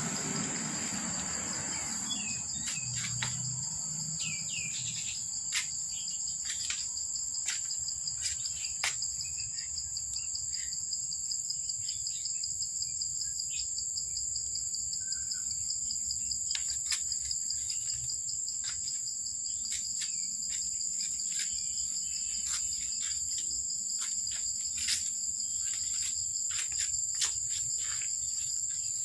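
Steady high insect chorus, an even shrill in two high bands, with scattered short sharp clicks and a few faint bird chirps.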